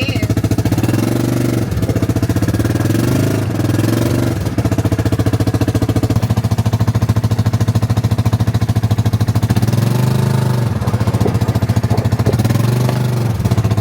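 Small vehicle engine running with a fast, even pulsing, its pitch rising and falling as it speeds up and eases off, around one to four seconds in and again near the end.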